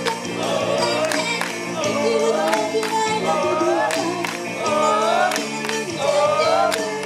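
Upbeat Japanese idol pop song: young women's voices singing a melody into microphones over a backing track with a steady dance beat.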